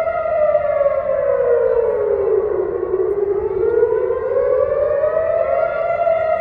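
Civil-defence air-raid siren wailing, the warning of an incoming rocket attack. Its pitch falls slowly for about three seconds, climbs back up, and the sound cuts off suddenly at the end.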